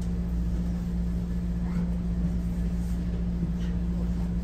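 Steady low mechanical hum of a train passenger carriage.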